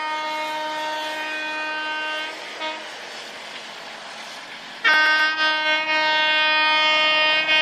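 Railway locomotive horn sounding two long blasts: the first lasts about two and a half seconds, and a second, louder one starts about five seconds in and runs about three seconds.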